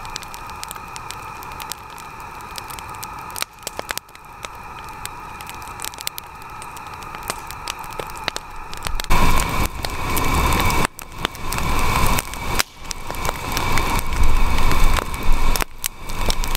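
Campfire of scrap lumber crackling and popping with many sharp snaps. About nine seconds in, a louder rushing noise with a deep rumble builds up under the crackle.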